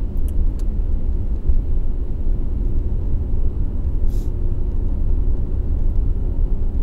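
Steady low rumble of a car's engine and road noise heard from inside the cabin while driving, with a brief hiss about four seconds in.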